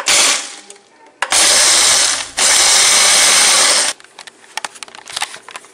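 Ninja countertop blender pulsed to crush ice with milk and Oreo cookies. A short burst at the start is followed by a longer run of about two and a half seconds that cuts off just under four seconds in. Light clicks and knocks come after it.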